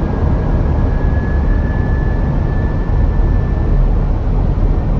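Steady rushing cockpit noise of an Airbus A319 in flight, from airflow and engines. A thin, steady high tone sounds over it and stops about four seconds in.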